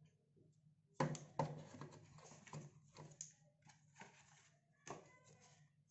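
Rustling, clicks and light knocks of unboxing packaging being handled: a plastic-bagged USB cable set back into the cardboard box tray. The sharpest knocks come about a second in, with more handling noise after, over a faint low hum.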